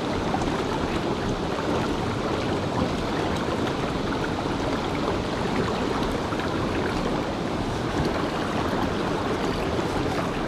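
Mountain river flowing: a steady, even wash of water noise.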